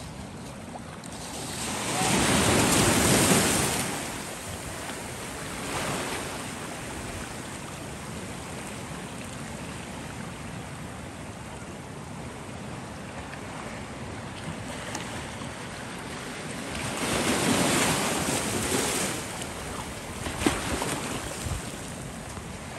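Ocean surf washing over a rocky shore of boulders and cobbles: a steady wash of water with two larger waves swelling and breaking, one about two seconds in and another about seventeen seconds in.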